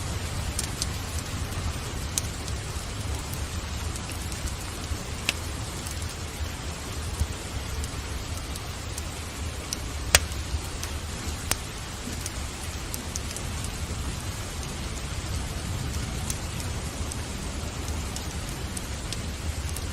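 Steady rain falling, with a low rumble underneath, mixed with a wood fire in a fireplace that gives a few sharp, isolated crackles scattered through.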